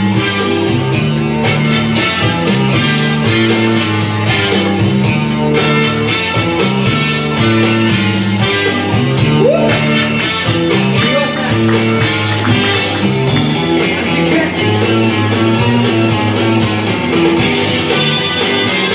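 Loud music with a steady drum beat and a repeating bass line, played over a sound system.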